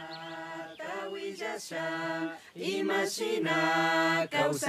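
A group of voices singing a hymn in Kichwa, holding long notes.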